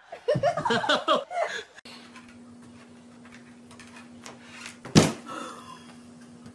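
Hard-shell guitar case lid slamming shut once, a sharp loud bang about five seconds in, over a steady low hum. Before it, a burst of vocal sounds fills the first couple of seconds.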